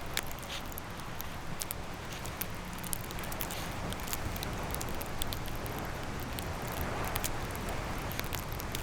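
Steady wind rushing and rumbling on the microphone in winter woods, with many small scattered crackles and clicks throughout.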